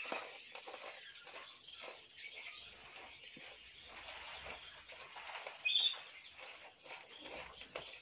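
Small birds chirping and tweeting throughout, with faint crackling as hands crumble egg with its shell into semolina.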